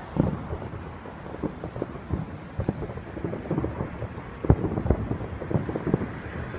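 Distant fireworks shells bursting, a rapid, irregular series of low booms and rumbles that overlap one another, the strongest about four and a half seconds in.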